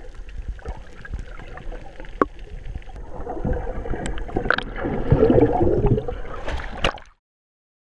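Water sloshing and gurgling heard underwater, with a few sharp knocks, swelling about three and a half seconds in into a louder churning rush of bubbles as a swimmer in boots climbs a boat's metal ladder. The sound cuts off abruptly near the end.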